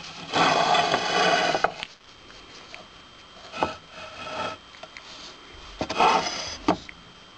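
Rubbing and scraping against a hard surface, in a long burst near the start and another near the end, with a few sharp clicks among them.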